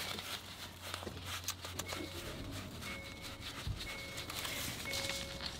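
Faint rustling and handling of a stack of paper banknotes being fanned out. From about two seconds in, a faint short tone repeats about once a second.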